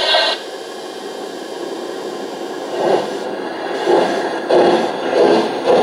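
LGB garden-scale model train running on the layout, a steady rolling noise that turns into an uneven series of louder rumbling pulses from about three seconds in. A whistle or horn tone from the locomotive cuts off just at the start.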